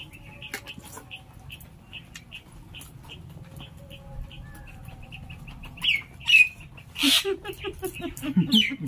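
A small bird chirping steadily in the background, short high chirps about three a second. From about six seconds in, louder mouth and voice sounds from the people eating come over it.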